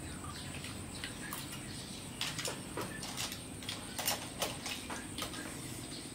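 Small scattered clicks and taps of a metal spoon and clam shells against a ceramic plate as the clams are eaten, over a faint steady background noise.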